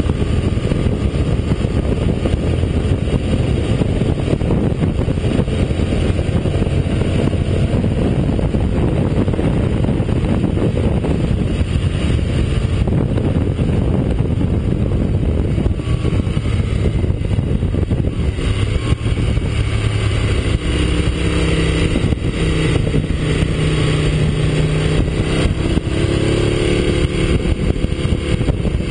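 Aprilia RSV Mille's V-twin engine running at motorway speed, about 145 km/h, heard from a camera on the bike under heavy wind rush. In the second half the engine note comes through more clearly and shifts a little in pitch.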